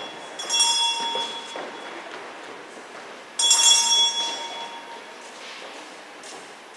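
A bell struck twice, about three seconds apart. Each stroke rings a clear tone that fades over about a second and a half.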